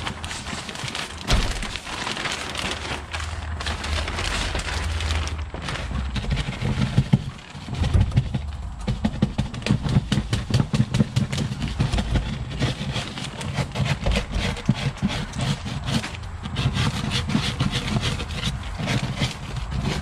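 CanaVac central vacuum power unit motor running, switched on to shake the dirt loose from its filter bag, while the plastic trash bag held around the unit rustles and crinkles.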